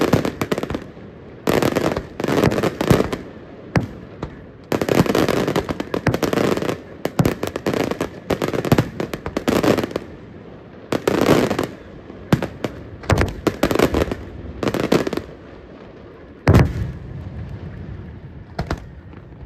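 Aerial fireworks shells bursting in rapid volleys, each a cluster of sharp bangs and crackling. The loudest single boom comes about three-quarters of the way through, followed by fading crackle.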